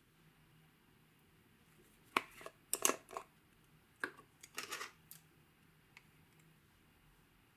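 Small plastic cosmetic-cream jar being handled: a run of short scraping clicks about two to three seconds in as the lid is twisted off, then more scraping clicks about four to five seconds in as a plastic spatula scoops out the cream.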